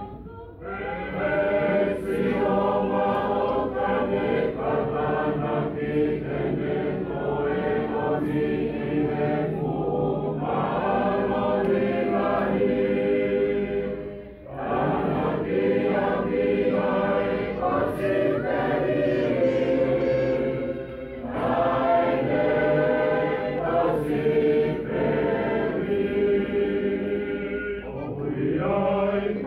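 Music: a choir singing, with a short break in the singing about halfway through.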